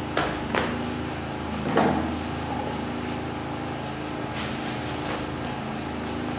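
Steady room hum, like a fan or air conditioner, with a few light knocks scattered through, two close together near the start and a couple more about four to five seconds in.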